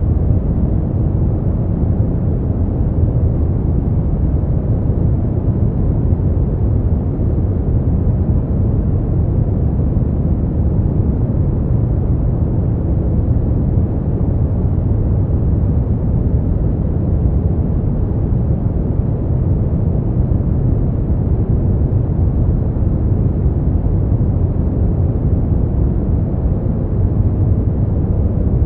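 Steady relaxation noise track, a deep, rumbling hiss weighted toward the low end, unchanging throughout, as played for sleep and study.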